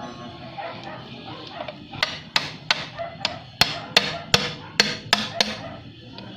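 A hammer tapping repeatedly on a Honda CB110 engine part during disassembly: about a dozen sharp, ringing strikes, roughly three a second, starting about two seconds in.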